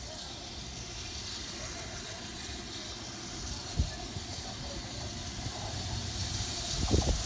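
British Railways Standard Class 7 steam locomotive No. 70000 Britannia approaching, a steady hiss and low rumble slowly growing louder as it nears. A short thump about four seconds in and a few more near the end.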